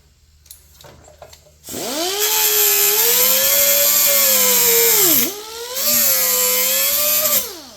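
Handheld power tool trimming the edge of an 18-gauge steel patch panel. It spins up about two seconds in with a high whine and a grinding hiss, briefly winds down and cuts off around five seconds, then runs again and winds down near the end.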